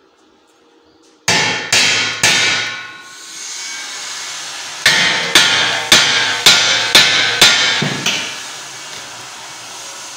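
Hammer blows on a square steel tube frame, each strike ringing in the metal: three quick blows, a pause, then a run of seven at about two a second.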